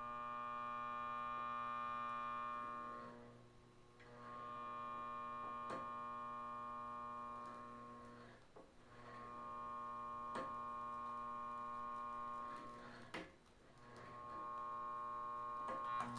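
Stalled 1.4 amp Skil palm sander motor humming with power applied but not spinning, switched on four times for three to four seconds each, with small clicks between. The owner says this motor refuses to spin.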